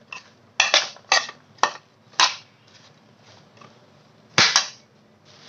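A metal spoon clinking and knocking against a metal mixing bowl while tossing chickpea chaat: a run of four sharp clinks in the first couple of seconds, then a quick double clink near the end.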